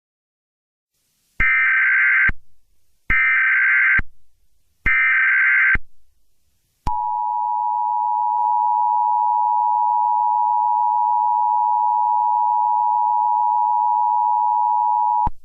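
Emergency Alert System tones. First come three one-second bursts of the warbling SAME digital header, about two seconds apart. Then the two-tone attention signal, a steady dissonant beep, holds for about eight seconds and cuts off suddenly, marking the start of an emergency alert.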